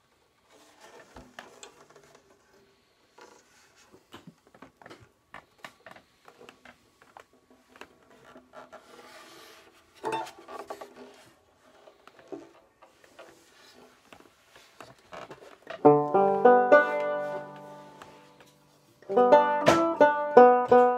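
Faint clicks and rustles from the instrument being handled, then, about three-quarters of the way through, a Kay Professional tenor banjo strummed with a pick: a few bright chords that ring and fade, with fresh strumming starting again near the end.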